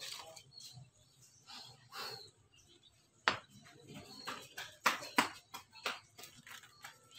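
Rustling and a few sharp crackling snaps of dry coconut husk fibre as a husked, sprouting coconut is turned and handled in the hands. The snaps are loudest about three seconds in and again around five seconds.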